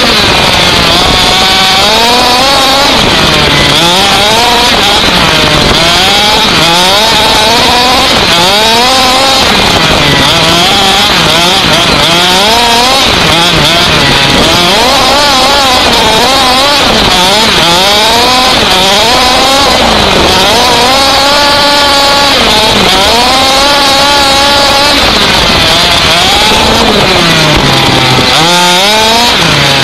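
Small engine of a radio-controlled off-road buggy, heard up close from a camera mounted on the car, revving up and falling back over and over, roughly every second or two, as the car accelerates and slows around the course. A steady hiss runs under it.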